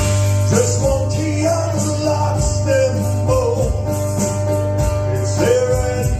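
A live band playing country-rock music: guitar over a steady bass and drums.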